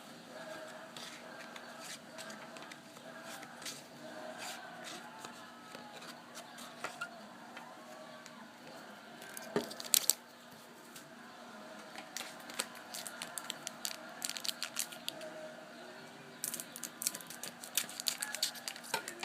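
Trading card packs being torn open and cards handled: wrapper tearing and crinkling with scattered sharp clicks and flicks, two louder snaps about ten seconds in, and a run of rapid card flicks near the end.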